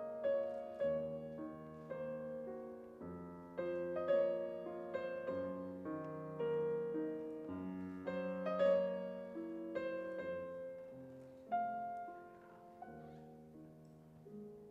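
Solo piano music: single notes and chords struck one after another, each left to ring and die away. The playing thins out and grows quieter near the end.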